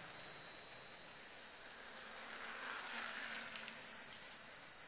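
Steady, high-pitched drone of tropical forest insects, holding one pitch without a break.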